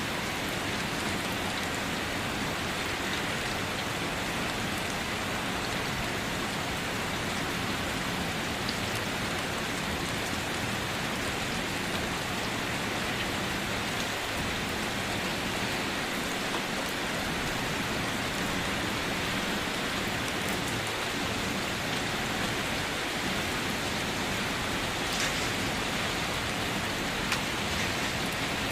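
Steady rain falling on a surface, a dense even patter with a few individual drops standing out, one a little louder about 25 seconds in.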